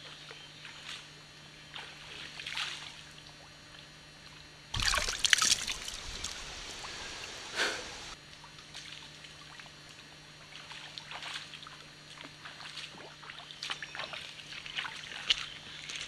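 Footsteps wading through a shallow stream, splashing and sloshing in the water, with a louder burst of noise about five seconds in.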